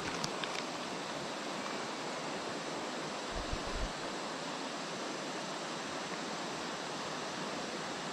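Steady rush of river water, a constant even noise, with a few soft low bumps about three and a half seconds in.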